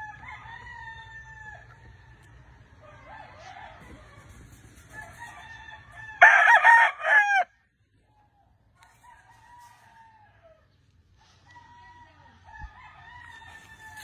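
Gamefowl roosters crowing: one loud, close crow about six seconds in that cuts off suddenly, with other roosters crowing faintly in the background.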